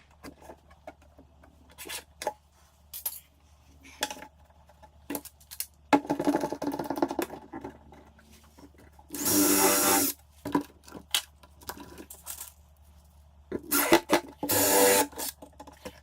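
Workshop handling sounds of plywood parts being fitted: scattered knocks, clicks and scrapes of wood, with a short loud burst of a power tool about nine seconds in and another around fourteen seconds.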